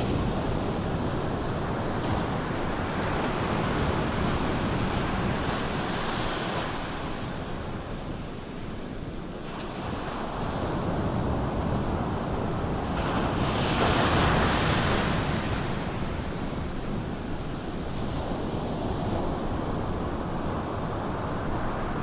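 Ocean surf washing onto a beach, a steady rush that swells and fades with the waves, dipping a little before halfway and loudest about two-thirds through.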